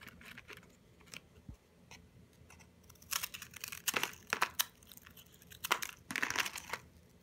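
Plastic snack-packet wrapping crinkling and rustling as it is handled, in two spells: about three seconds in, and again around six seconds.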